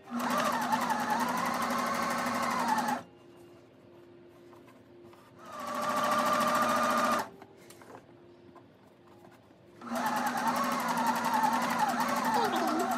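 Domestic sewing machine stitching coiled cotton clothesline rope together. It runs in three bursts of a few seconds each with short pauses between, and the middle burst starts slowly and speeds up.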